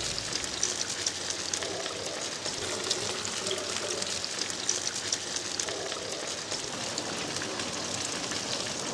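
Chicken frying in hot oil in a pan over embers: a steady sizzle full of small crackles and pops.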